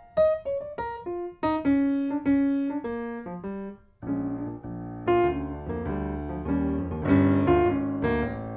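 Background piano music: struck single notes and chords that ring and fade. About four seconds in it breaks off briefly, then a fuller passage with bass notes begins.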